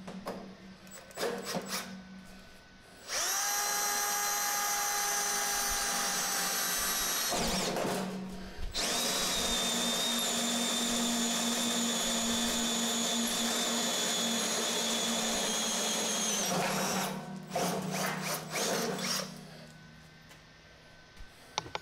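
Power drill driving a hole saw through a stainless steel sink deck, cutting a faucet hole with a steady, high, squealing whine. The cutting runs in two stretches, about four seconds and then about eight seconds, with a short pause between them. A few knocks come before and after.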